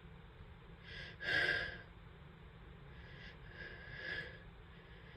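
Sharp, breathy gasping intakes of breath: a louder one about a second in and a fainter one near four seconds, the build-up to a sneeze.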